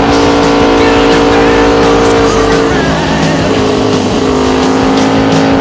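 2003 Honda VFR800 Interceptor's V4 engine running at steady revs from onboard, with wind rushing over the microphone. About halfway the revs dip and then climb again.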